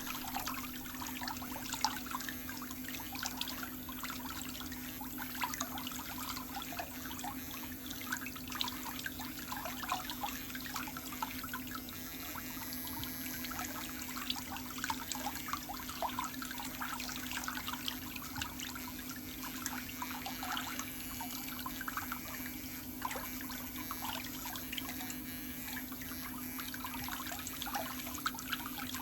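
Electric nail drill with a mini diamond cone bit running at a steady speed, a constant hum under a scratchy crackle as it buffs skin off the toenail surface and around the cuticle.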